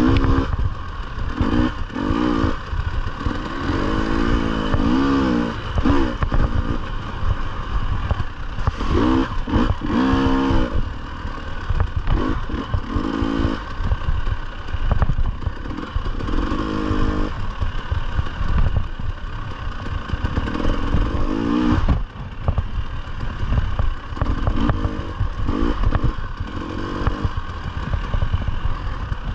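Dirt bike engine revving up and dropping back again and again with throttle changes while riding a rough trail, over a constant low rumble and clatter from the bike.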